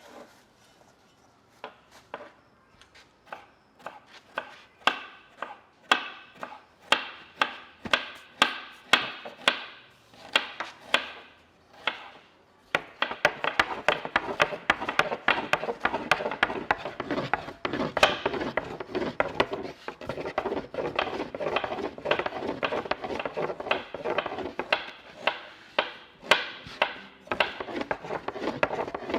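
Repeated chopping strokes: separate sharp chops about two a second, growing louder over the first few seconds, then from about thirteen seconds in a fast, dense run of rapid chopping.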